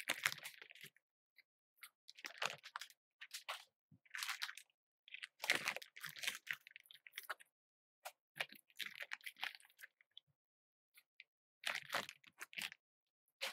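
Dried guajillo and ancho chili peppers crinkling as they are handled and pushed down into a pot of water. The sound comes in irregular bursts with short pauses between them.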